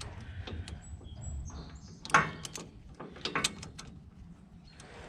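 Scattered metallic clicks and clinks of a steel side plate being worked onto the pins of a combine's clean grain elevator roller chain by hand, the sharpest click about two seconds in and a quick run of clicks a second later.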